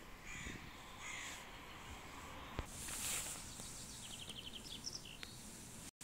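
A crow cawing twice, about a second apart. About four seconds in, a small bird gives a quick trill of even notes, followed by a few thin high chirps.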